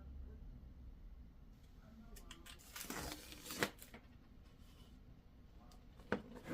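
Packaging being torn open with a crinkling rustle for about a second, a sharp snap near its end, then two more clicks near the end.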